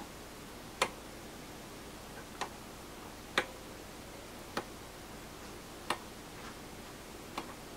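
Rotary decade switch on a Keithley 260 Nanovolt Source being clicked one detent at a time, about six faint sharp clicks spaced a second or so apart, each click stepping the output up one position.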